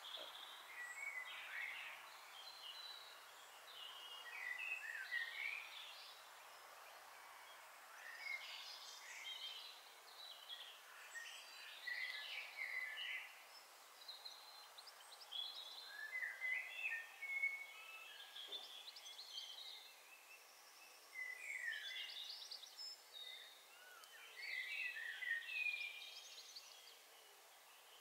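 Bird song: short, high chirping phrases of one to two seconds, repeated every few seconds over a faint steady hiss.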